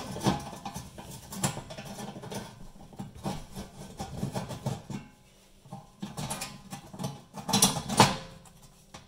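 Screwdriver turning and scraping on the screws of a sheet-steel oven fan cover, with irregular small metallic clicks and knocks. A louder metal clatter comes near the end as the cover panel is gripped and shifted.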